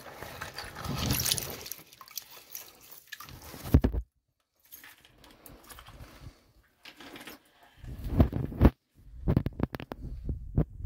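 Hand digging in a waterlogged pit: a tool scraping and sloshing through muddy water and wet rock rubble, with several sharp knocks. The sound cuts out abruptly twice.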